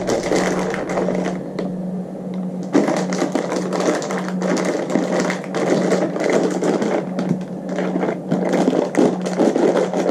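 Dense clattering and crinkling as a plastic package of mechanical keyboard switches (brown tactile switches) is opened and the switches are handled, with a short lull about two seconds in. A low steady hum runs underneath.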